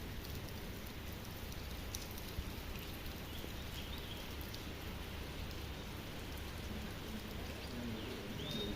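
Steady rain with scattered faint drip ticks, and a few faint short high chirps partway through and near the end.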